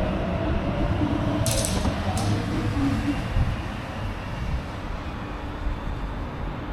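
Sydney Trains electric suburban train running at the station, a steady low rumble that slowly fades. Two short high hisses come about one and a half and two seconds in.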